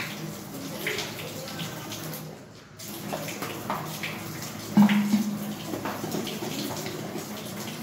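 Tap water running and splashing into a stainless steel sink while a plastic bottle is rinsed under it by hand, with a louder knock about five seconds in.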